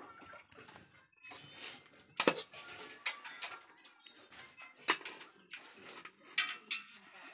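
A steel spoon clinking and scraping against stainless steel dishes as cooked rice is served onto a plate: a series of sharp, irregular clinks.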